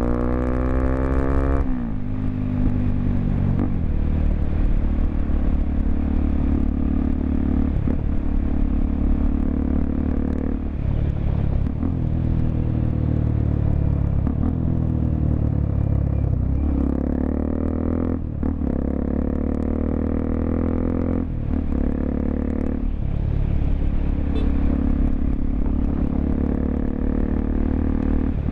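Honda XRE 300's single-cylinder four-stroke engine running through a Roncar 2 Way aftermarket exhaust while the bike is ridden. The engine note rises in pitch under acceleration, drops back at gear changes several times, and holds steady between them.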